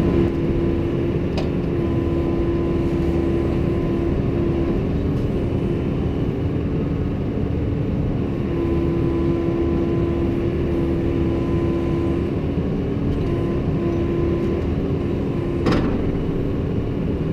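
Kobelco excavator running steadily at close range as its bucket digs soil, a low engine hum with a tone that comes and goes as the arm works. A single sharp knock near the end.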